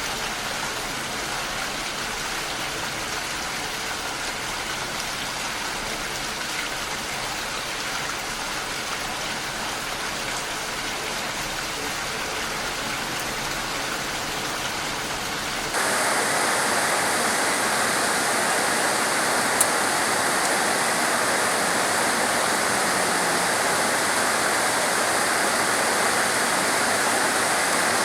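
Steady rain falling. A little over halfway through, the sound switches suddenly to a louder, brighter rush of heavy rain, with a single short click a few seconds later.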